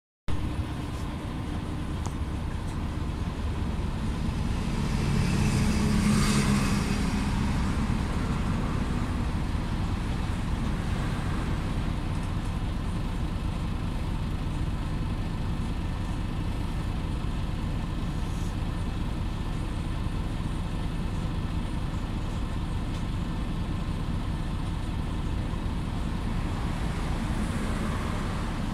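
Interior drone of a Mercedes-Benz Conecto LF city bus's diesel engine running, heard from inside the passenger cabin, steady, with a louder swell about six seconds in.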